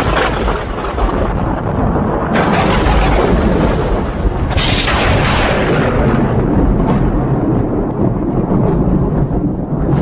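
Thunder rumbling continuously, with fresh loud claps breaking in about two and four and a half seconds in.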